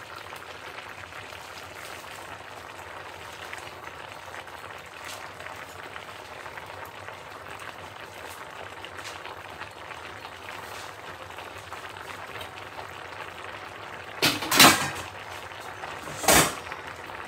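Chicken stew simmering in a wok under a heap of wild garlic leaves, a steady bubbling hiss. Two loud knocks come near the end, the first the louder.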